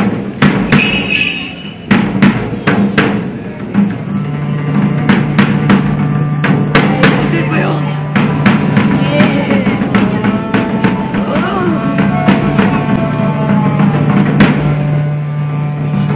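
Music with a drum beat over a sustained low drone, with melodic lines gliding above it midway through.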